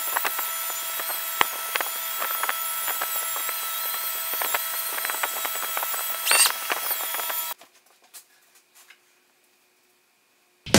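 Electric rotary polisher with a wool buffing pad running against a painted motorcycle gas tank: a steady motor whine of several pitches, peppered with small ticks and clicks from the pad on the paint. It cuts off suddenly about seven and a half seconds in, leaving near silence.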